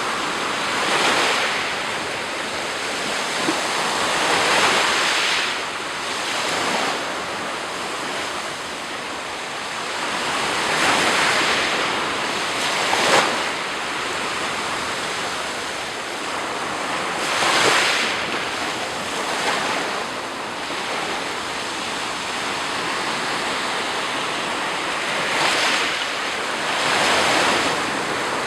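Sea surf: waves breaking and washing up the shore, swelling louder every few seconds over a steady rush of water.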